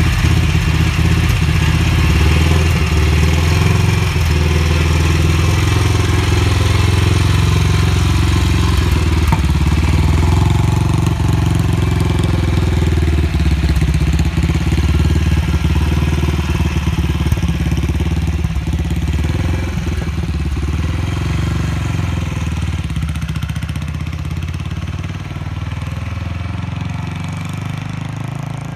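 Classic pushrod motorcycle engine running with a loud, low exhaust beat, then pulling away and fading into the distance over the last several seconds.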